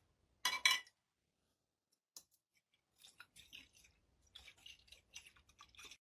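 Foley sound effects made with props: a short, sharp noisy burst about half a second in, then a run of soft, crisp clicks and rustles over the last three seconds.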